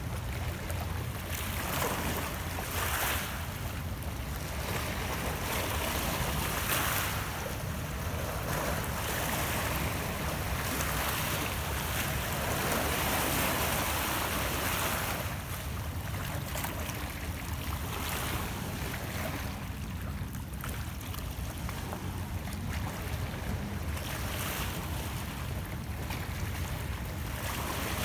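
Small lake waves lapping and washing against shoreline rocks, swelling and easing every few seconds over a steady low rumble.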